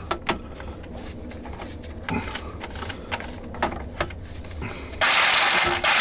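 Clicks and rattles of a socket being worked onto a flywheel bolt. About five seconds in, a Bauer corded impact driver starts hammering loudly on the bolt to undo it.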